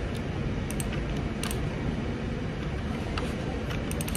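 Steady low background rumble of room noise, with a few faint light clicks.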